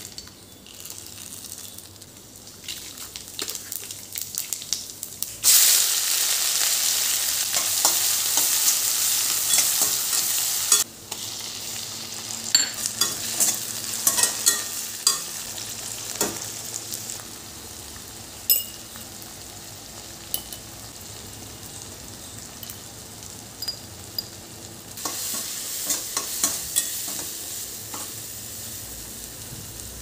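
Onions, tomatoes and dried red chillies sizzling in hot oil in a stainless-steel kadai, with a slotted metal spatula scraping and clicking against the pan as they are stirred. The sizzle jumps suddenly louder about five seconds in, eases again about eleven seconds in, and swells once more near the end.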